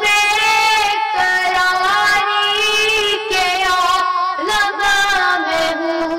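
A boy singing a naat, an Urdu devotional song in praise of the Prophet, in long held, wavering notes with short breaks between phrases.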